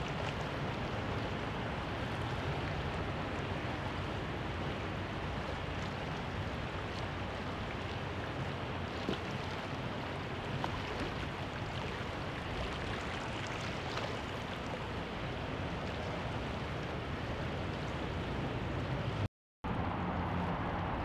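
Steady riverside city ambience: an even wash of noise, with distant traffic and water blended together and a few faint ticks. The sound cuts out completely for a moment near the end.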